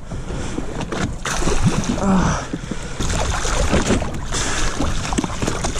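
Water splashing and irregular knocks against a small boat as a big hooked Spanish mackerel thrashes at the stern, with wind rushing on the microphone.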